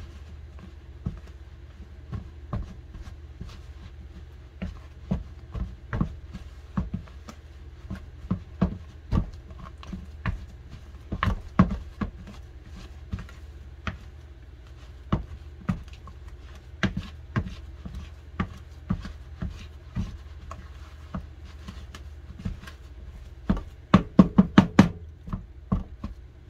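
A utensil knocking and scraping in a plastic mixing bowl as boiled pumpkin is mashed into glutinous rice flour and tapioca for dough, in irregular knocks about once or twice a second, with a quick run of louder knocks near the end. A steady low hum runs underneath.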